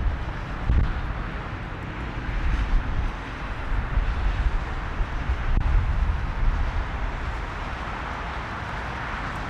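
Jet airliner's twin engines at takeoff thrust: a steady roar as the plane accelerates down the runway and lifts off. Under it is an unsteady low rumble that comes and goes in gusts, from wind on the microphone.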